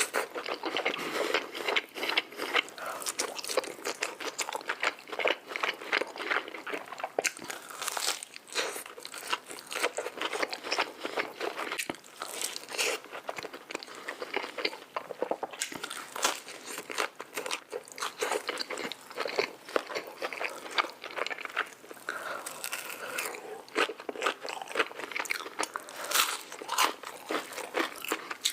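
Close-miked eating: a steady run of crunchy bites and chewing, with dense irregular crackles.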